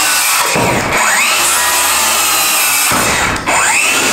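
DeWalt cordless circular saw cutting through a 2x4 pine board. The motor slows under the cut and spins back up, once about half a second in and again after a brief drop near the end.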